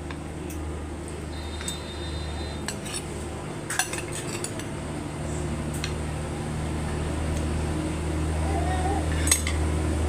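Spoons and forks clinking and scraping against plates during a meal, in scattered sharp clicks over a steady low hum.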